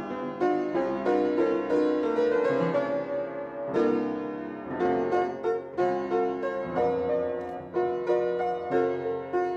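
Background music on a solo keyboard instrument: a run of quick notes, each struck sharply and then fading.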